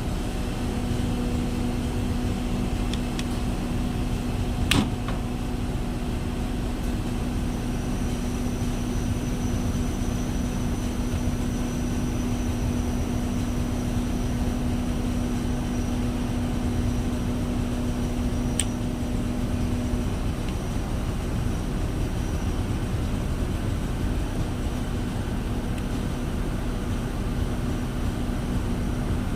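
Steady machine-like background noise with a low hum that stops about two-thirds of the way through, and a sharp click about five seconds in.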